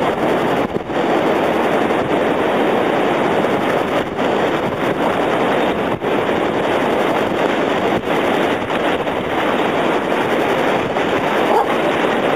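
Steady rushing noise of wind and surf at a beach, with no distinct events standing out.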